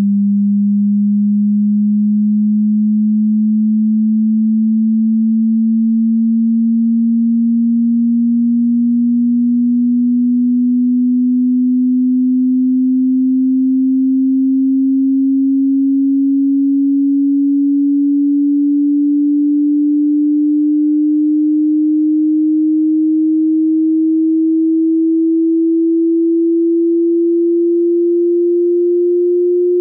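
A single pure sine tone gliding slowly and evenly upward in pitch, from about 200 to about 350 hertz: the low-mid stretch of a 20 Hz to 20 kHz hearing-test frequency sweep.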